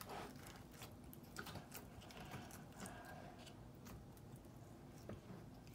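Crunchy slime being pressed and poked with fingertips, giving faint, irregular crackling clicks.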